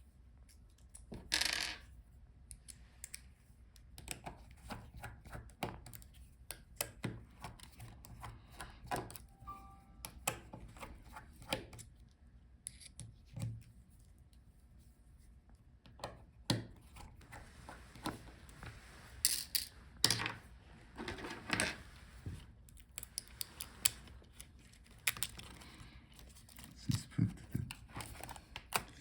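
Irregular small clicks, taps and scrapes of hand work on a laptop: small screws being backed out of the palmrest and the plastic touchpad being handled and lifted out. The clicks come more often from about halfway on.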